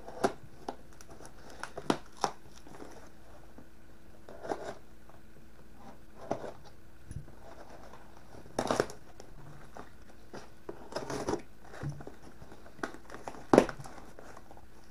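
A long, packing-taped cardboard box being cut and torn open by hand with a knife: scattered short rustles, scrapes and cardboard tears, with louder crunching tears about 9, 11 and 13.5 seconds in.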